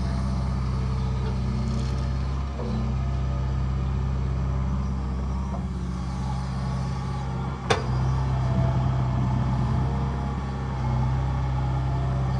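John Deere 160G LC excavator's diesel engine running steadily under load while it digs, swings and dumps topsoil. There is a single sharp knock about eight seconds in, and the engine grows a little louder soon after.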